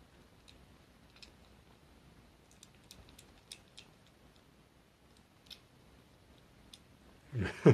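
A kitten licking and chewing the last scraps of wet tuna food from a plastic bowl, licking the dish clean: faint, scattered small clicks, a dozen or so over several seconds. A man's voice starts right at the end.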